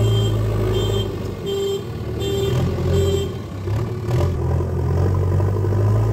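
JCB 3DX backhoe loader's diesel engine running steadily, with its reversing alarm beeping about every 0.7 seconds until about three seconds in, when the beeping stops.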